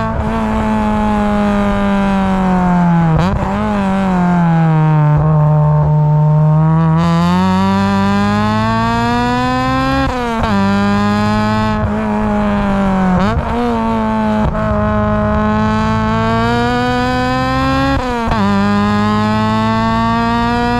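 Honda Civic Type R EP3's 2.0-litre four-cylinder engine through a 4-2-1 manifold and silenced 70mm exhaust, driven hard through the gears. The pitch climbs in each gear and dips sharply at four gear changes, with a slower fall and rise near the start as it eases off and pulls again.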